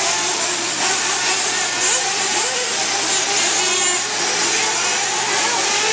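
Several 1/8-scale nitro RC buggy engines running and revving, their high, buzzing pitches rising and falling over one another.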